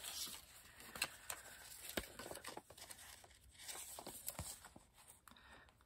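Faint handling noises: scattered light clicks and taps with some rustling as the plastic cutting plates are moved and laid out on the die cutting machine, dying away near the end.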